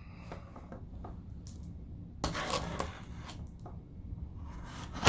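Cardboard packaging being handled and opened: rustling, scraping and small knocks, loudest about two seconds in and again near the end.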